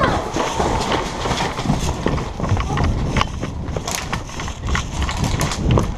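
Irregular footfalls and handling knocks close to the camera, scattered with many sharp clicks, typical of a player moving with gear.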